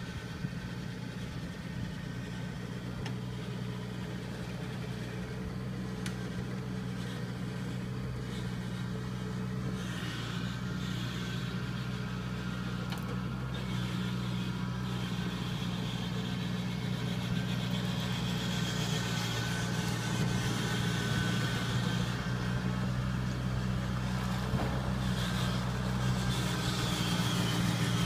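Kubota combine harvester's diesel engine running steadily with a low, even hum, growing gradually louder as the machine comes closer.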